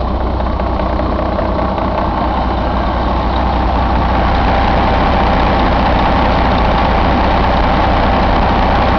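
Mercedes-Benz MBE4000 (OM 460 LA) inline-six turbo diesel idling steadily, growing a little louder about four seconds in.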